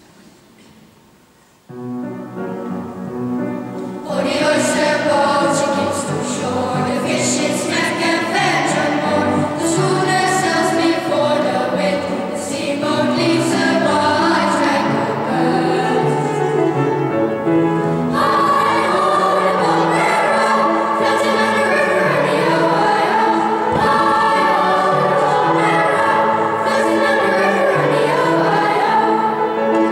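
Children's choir singing a song together. The music starts softly just under two seconds in, and the full choir is singing from about four seconds in.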